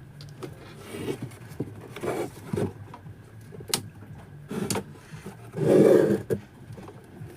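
Handling noise from testing the power switch with a continuity tester: scrapes and a few sharp clicks as the probes are set on the switch terminals, and a louder rustling knock about six seconds in.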